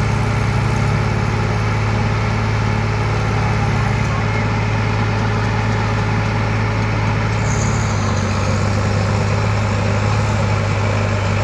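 Diesel engines of a Mahindra and a Sonalika tractor running together with a steady, low drone that holds constant throughout.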